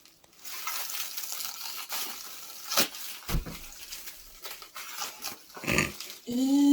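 A taped cardboard package being worked open by hand: crackling and rustling of tape and packing, with a few sharp knocks. A short voiced sound comes near the end.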